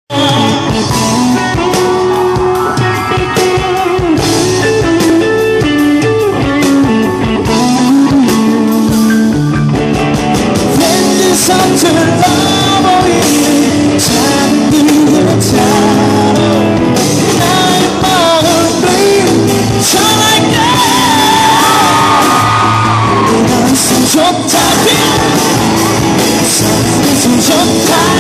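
Live rock band performance: a male lead vocal singing over amplified electric guitars and a drum kit, loud and continuous.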